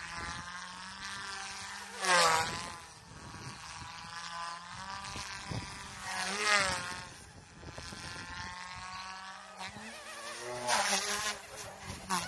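Small electric RC helicopter (GOOSKY S2) in flight: a high-pitched buzzing whine from its motor and rotors that rises and falls in pitch as it manoeuvres, with louder swells about two seconds in, in the middle, and near the end.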